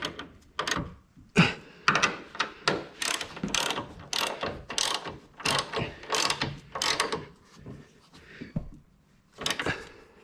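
Hand ratchet wrench clicking in short back-and-forth strokes as it tightens the strut bar's mounting nuts on the strut towers, with a short pause near the end.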